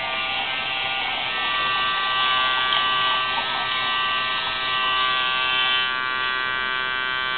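Small electric water pump running with a steady hum as it circulates water through the HHO generators' plumbing. Water is poured from a jug into a clear reservoir, splashing until about six seconds in.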